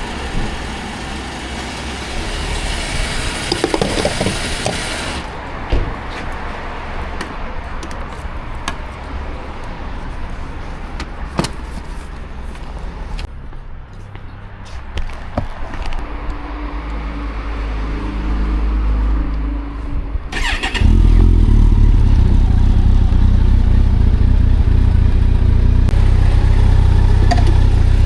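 A Kawasaki motorcycle engine starts about three quarters of the way through and settles into a loud, steady idle. Before it there are scattered clicks and knocks over a background of passing noise.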